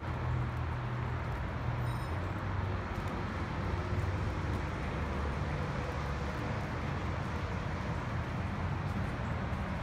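Steady low rumble of outdoor background noise, like distant traffic or machinery, with a faint short high beep about two seconds in.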